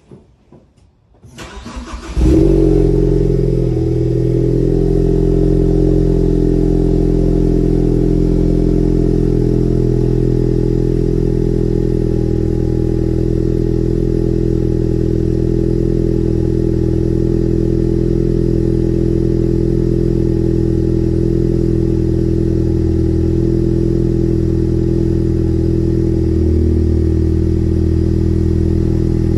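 Ford Focus ST's turbocharged 2.0-litre four-cylinder cold-started after sitting over a day, heard at the tailpipes of its 2.5-inch Magnaflow exhaust. It cranks briefly, catches about two seconds in with a loud flare, then settles into a steady idle.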